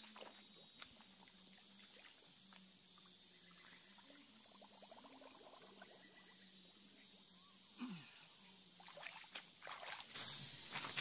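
Shallow stream water sloshing as hands set a bottle fish trap on the bottom around the middle, then splashing footsteps of rubber boots wading out through the water near the end, over a steady high insect drone.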